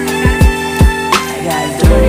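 Music: a beat of deep kick drums that slide down in pitch, struck several times, over held sustained chords.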